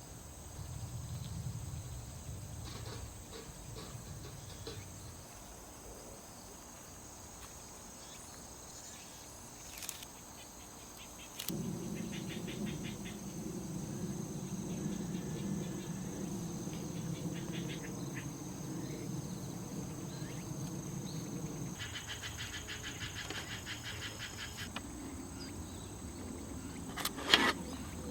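Crickets and other autumn insects chirping steadily, with bands of fast pulsing trills coming and going. For about ten seconds in the middle a low steady hum runs underneath, and there is a sharp knock near the end.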